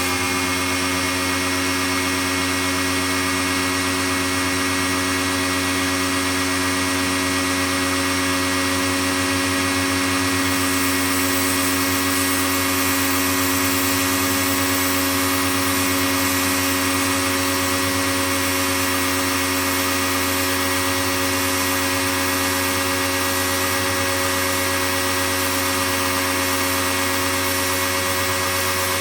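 Pro-Kleen 1600 pressure washer running steadily: a constant motor and pump hum with hiss over it.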